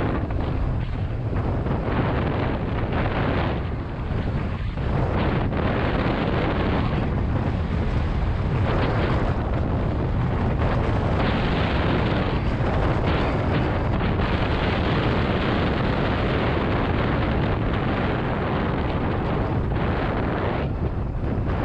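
Heavy wind buffeting on a mountain biker's camera microphone, a loud continuous rumble and rush, with the rattle and noise of the bike running over a wet trail mixed in.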